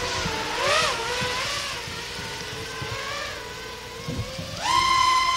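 FPV racing quadcopter's electric motors whining as it flies, the pitch wavering up and down. Near the end the whine climbs sharply in pitch and grows louder for about a second, then falls away.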